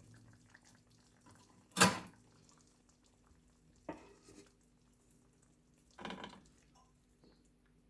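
Kitchen utensils and dishes clinking: three separate sharp knocks, the loudest about two seconds in, the others near four and six seconds.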